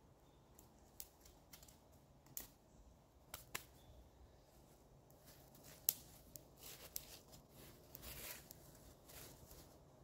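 Wood campfire crackling faintly, with sparse irregular pops and a brief hiss about eight seconds in.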